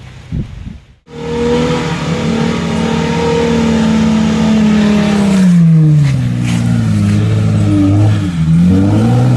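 Off-road 4x4's engine straining under load, its pitch sinking slowly over several seconds as the revs drop. It then revs up and down in short surges. The sound begins after a brief gap about a second in.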